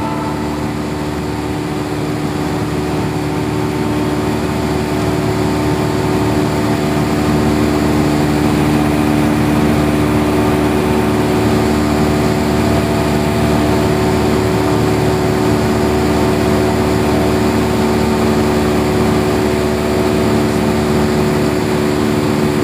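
Single-engine Cessna's piston engine and propeller droning steadily in cruise flight, with an even hum over a rushing rumble, growing slightly louder over the first few seconds.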